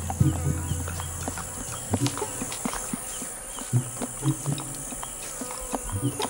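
Forest insect chorus, a steady high-pitched buzz, with scattered short clicks and soft knocks.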